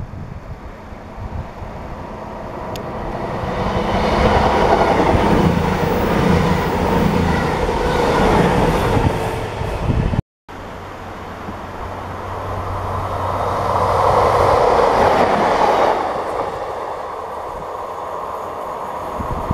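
A CrossCountry Voyager diesel-electric multiple unit passes at speed, its engine drone and wheel-on-rail noise swelling to a peak. It cuts off abruptly about ten seconds in. Then a second diesel multiple unit passes, rising to a peak and fading as it runs away.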